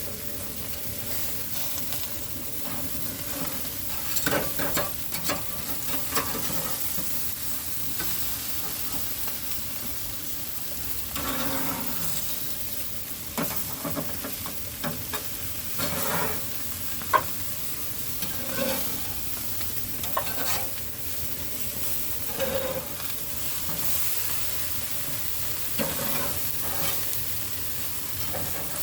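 Hamburger patties sizzling on a grill, a steady hiss with scattered pops and crackles.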